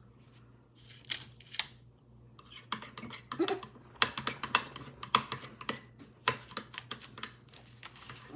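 Irregular sharp clicks and taps of small containers and utensils being handled, sparse at first and busiest from about four seconds in.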